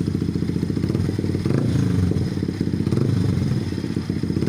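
Motorcycle engine running loud through a Villan aftermarket exhaust pipe, its note wavering up and down in pitch a few times.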